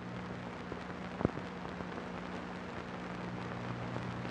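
Old film soundtrack noise: a steady hiss over a low hum, with fine crackle and a single sharp pop about a second in.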